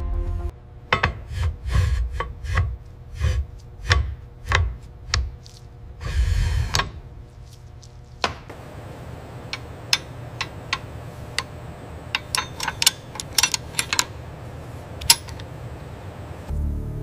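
Metal pistol parts being handled and fitted together: a run of about nine knocks with low thuds, a short scraping rush around six seconds in, then scattered light metallic clicks.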